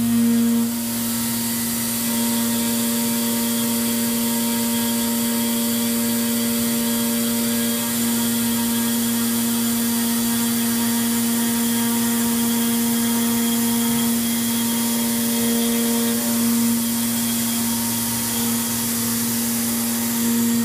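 CNC vertical milling machine's spindle and end mill cutting a large, flat, thin metal plate: a steady low tone with a constant high hiss over it.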